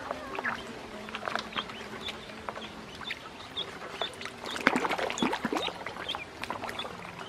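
Ducklings peeping in short high cheeps while paddling and splashing in a shallow plastic tub of water, with a burst of louder splashing a little after halfway. A faint steady low hum runs underneath.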